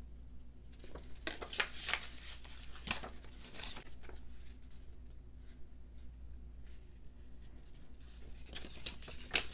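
Paper and card rustling and sliding as album inserts are handled: a cluster of rustles in the first few seconds, a quieter stretch, then more rustling near the end, over a faint steady low hum.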